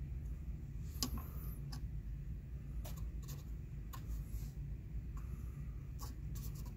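Light, irregular clicks of a finger pressing the arrow and set buttons on a Carmanah 650 marine lantern's keypad, about eight presses, over a low steady hum.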